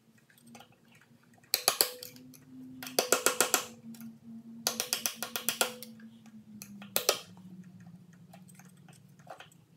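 Steel pick clicking and scraping against the old upper crankshaft oil seal of a Briggs & Stratton lawn mower engine as it is pried out of the crankcase, in four short bursts of rapid clicks.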